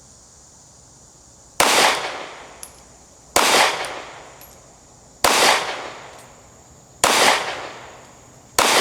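Five single 9mm shots from a Glock 43X pistol, fired at a steady pace about two seconds apart, each followed by a short fading echo.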